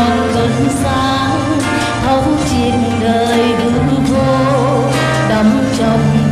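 Music of a Vietnamese Buddhist devotional song, with held bass notes under a wavering melody line.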